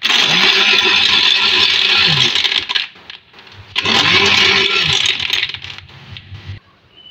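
Electric countertop blender running twice in short runs, about two and a half seconds and then about two seconds, a second apart. The motor whines up to speed at each start and winds down at each stop as it churns yogurt and milk into lassi.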